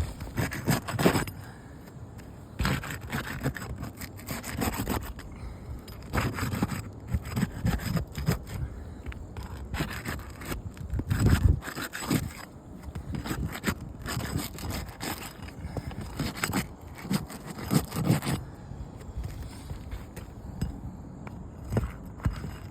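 Irregular scraping and rubbing on asphalt roof shingles, coming in uneven bursts, as the shingles are scuffed and handled during a roof inspection.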